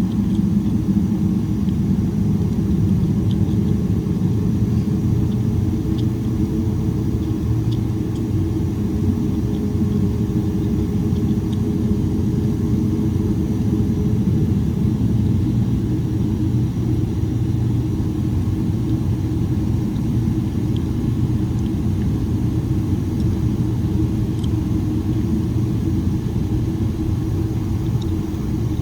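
Steady low rumble heard inside the cabin of a Boeing 777-300ER, its GE90 engines running at low power as it taxis.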